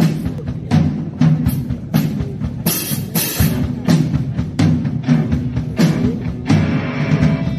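Live rock band playing: electric guitars, bass guitar and drum kit, driven by a steady drumbeat.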